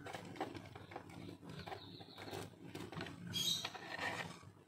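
Faint clicks and rustling of hands working a wire and a soldering iron on a power-supply circuit board, with a short hiss about three and a half seconds in.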